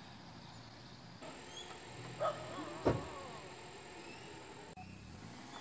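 Faint roadside outdoor ambience with a low steady hum of vehicle engines. A brief pitched call comes a little after two seconds and a sharp click just before three.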